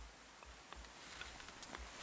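Wood fire crackling: a few faint pops and snaps over a soft hiss.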